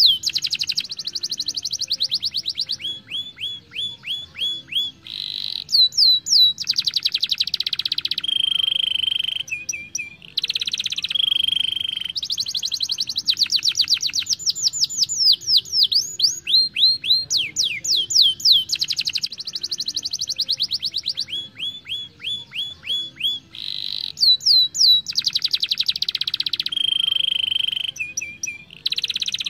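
Domestic canary singing a fast song of rapid trills, quick falling sweeping whistles and buzzy rolls, phrase after phrase with short breaks between.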